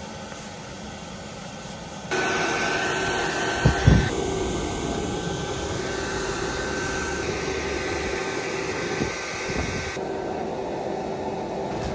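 Steady whirring of an electric air blower with a thin steady whine, starting abruptly about two seconds in, with two thumps just before the four-second mark.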